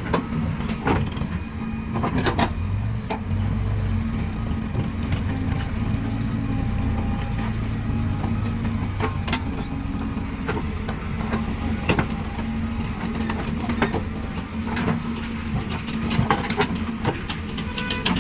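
Diesel engines of backhoe loaders and tractors running steadily, with frequent sharp knocks and clatters over the hum.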